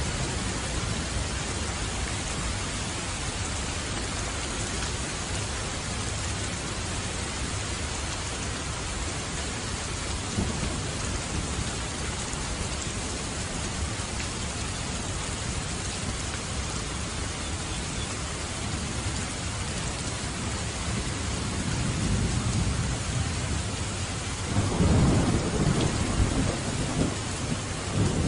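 Steady rain falling, an even hiss throughout. Thunder rumbles in low about three-quarters of the way through, grows to its loudest near the end, and swells again at the very end.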